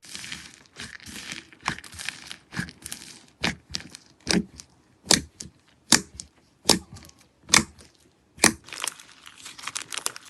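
Slime being worked by hand close to the microphone: a dense crackling, then seven sharp pops about one a second as air pockets are pressed, then crackling again near the end.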